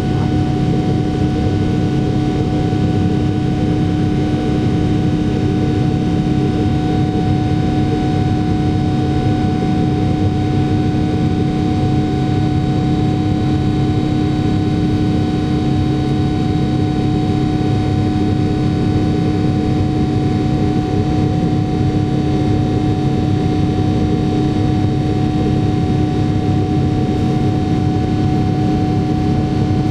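Airliner's large high-bypass turbofan engine at climb thrust, heard inside the cabin from a seat beside it: a steady, loud drone with a constant low hum note and a fainter high whine over it.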